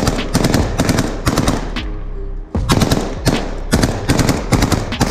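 Automatic gunfire in repeated short bursts of rapid shots, with a short lull about two seconds in.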